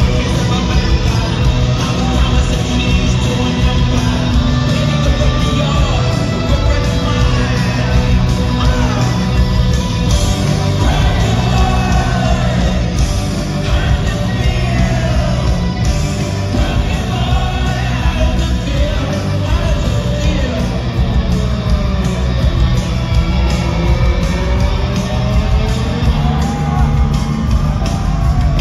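Live rock band playing loudly, with drums, bass and guitar under a sung and shouted lead vocal.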